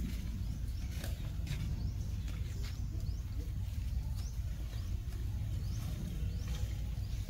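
An infant long-tailed macaque gives short, high, rising squeaks every second or so over a steady low rumble.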